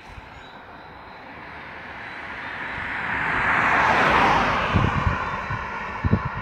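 A car coming up from behind and passing close by: its tyre and engine noise swells to a peak about four seconds in, then fades with a falling pitch as it drives away.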